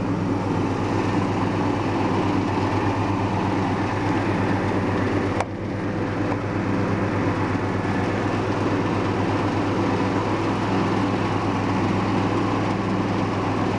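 24 hp twin-cylinder Kawasaki engine of a Cub Cadet CC 1224 KHP garden tractor running steadily with its three-blade mowing deck engaged and spinning. A single sharp click about five seconds in, with a brief drop in level.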